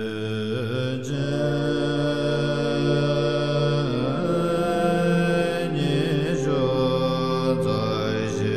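Background music of a chanted mantra: a voice sings long held notes that shift in pitch every second or two over steady low accompaniment.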